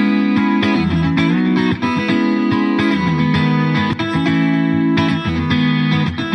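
Background music led by a guitar playing sustained notes.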